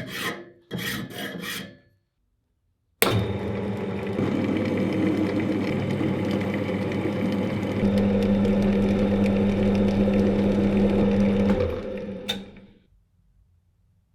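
A few strokes of a hand file, then a short pause. An electric power tool then starts and runs steadily with a low hum for about nine seconds. It gets louder about halfway through as it takes more load, then winds down near the end.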